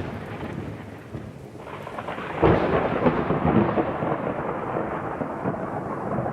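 Thunder rumbling with rain. An earlier rumble dies away over the first second or so, then a fresh crack of thunder comes about two and a half seconds in and keeps rolling.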